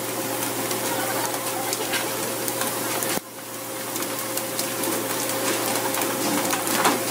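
Rushing, churning sea water along the side of a fishing boat, with a steady hum running under it and a few faint clicks. The sound drops suddenly about three seconds in and then builds back up.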